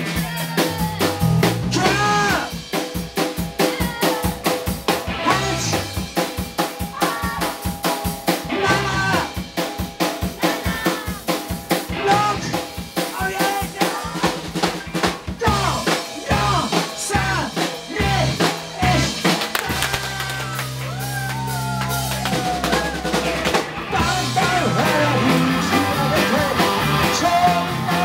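Live rock band playing: drum kit, bass and electric guitars, with a singer. About twenty seconds in, the drums drop back for a few seconds under a held low chord, then the full band comes back in.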